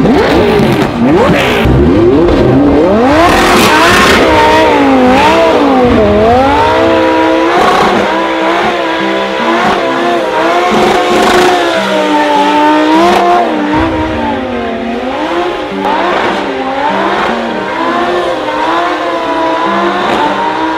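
Lamborghini Huracán drift car's engine, climbing hard in the first few seconds, then revving up and down over and over while it drifts in circles with its rear tyres spinning and smoking. A hiss of tyre noise runs under the engine.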